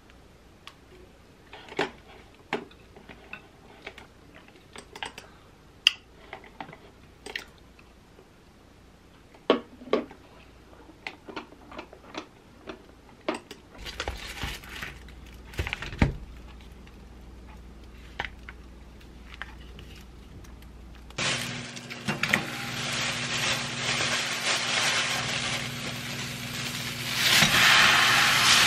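Scattered light clicks and taps, then plastic food packets handled and rustled around the middle. From about two-thirds of the way in, thin pork slices frying in a pan: a steady sizzle with a low hum under it, loudest near the end.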